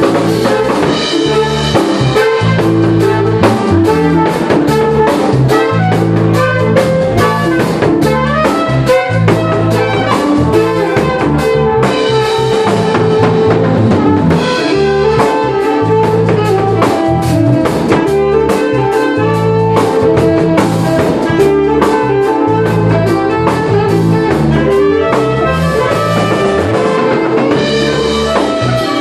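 Jazz-fusion band playing live: a drum kit keeps a steady, even beat over a moving bass line and a sustained melody line.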